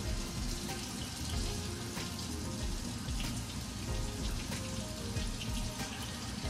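Water running steadily from a kitchen tap into a sink, with music playing faintly.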